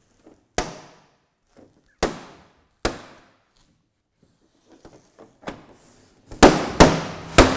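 Plastic snap-lock clips of a Samsung 7100-series TV's screwless rear cover cracking as the cover is pried off with a special opening tool: sharp snaps a second or so apart, then three louder ones in quick succession near the end. The cracking sounds alarming but is normal: these covers come off this way.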